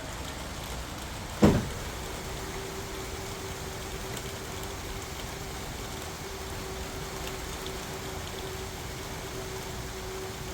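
A single sharp knock about a second and a half in, then a steady hum, over a constant hiss of workshop background noise.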